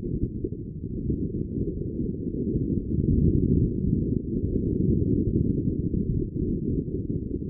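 Wind buffeting the camera's microphone on a yacht under sail: a low, gusting rumble that grows louder about three seconds in.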